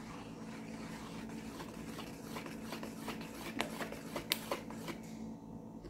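A plastic stick stirring thick homemade liquid soap in a plastic basin: faint stirring with a few light clicks of the stick against the basin, the sharpest a little past four seconds in.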